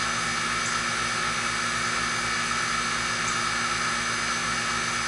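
A 3-ton R22 Trane XR1000 air-conditioning condensing unit running: the condenser fan's steady rush of air over a low, steady compressor hum.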